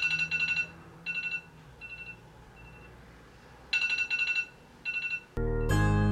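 Electronic alarm beeping in quick bursts of high-pitched beeps, some bursts loud and some faint, as a wake-up alarm. About five seconds in, light plucked-string music starts.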